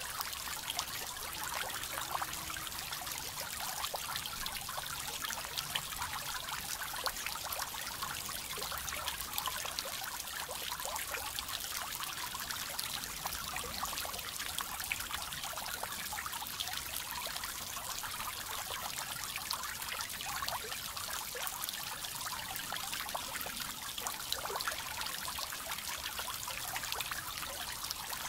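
Small garden-pond fountain spraying, its jets of water falling back onto the pond surface in a steady patter and trickle of droplets.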